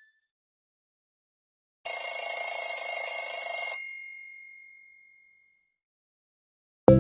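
A Nokia C2-01 stock alert tone sounding once, starting about two seconds in: a ringing tone of about two seconds with steady high pitches over a buzzing lower part, which then fades away. A plucked guitar-like tone starts at the very end.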